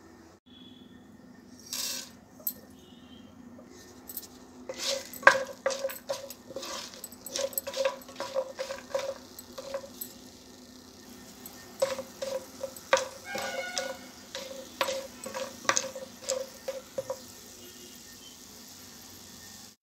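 Whole spices and coconut pieces sizzling in hot oil in a pan, with a steady hiss. From about five seconds in until near the end, a utensil stirs them, knocking and scraping against the pan in quick ringing taps; the last couple of seconds hold only the sizzle.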